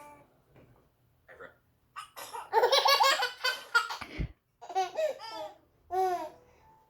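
Baby belly-laughing in bursts of high-pitched giggles. The longest, loudest run comes about two and a half seconds in, followed by two shorter bursts.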